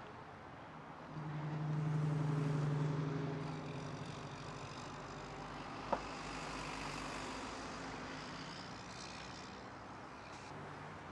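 Road traffic: a vehicle passes with a low engine hum that swells about a second in and fades over the next few seconds, over steady traffic noise. A single sharp click about six seconds in.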